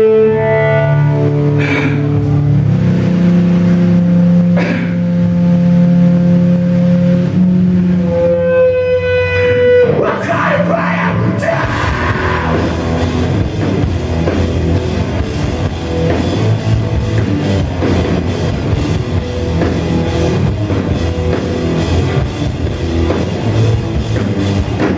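Heavy rock band playing live with guitars, bass and drums: long held notes ring out over a low drone for the first ten seconds, then the full band comes in loud and dense.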